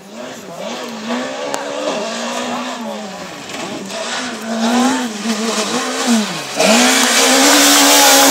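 Škoda Fabia S2000 rally car's engine at full throttle on approach, its pitch climbing and dropping back with each gear change. About six and a half seconds in the pitch dips as it brakes and downshifts for the corner, then it comes through close and loud near the end.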